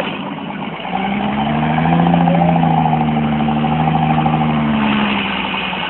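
A 4x4's engine revving up about a second in and held high under load for several seconds, then easing off near the end: the vehicle straining to pull itself out of deep mud.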